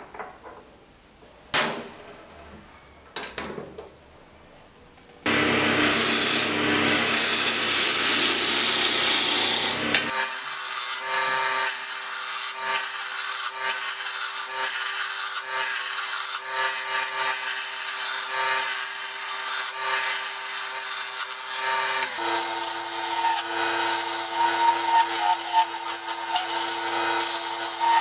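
A few light clicks of the workpiece being handled, then a wood lathe spinning a wooden blank while a skew chisel cuts it: a steady motor hum under the scraping hiss of the cut. Later the hum's pitch steps down a little.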